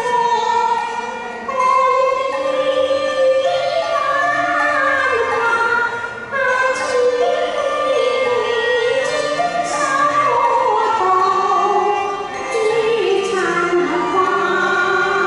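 A woman singing a Cantonese opera song through a microphone, with long held notes that slide up and down, over musical accompaniment.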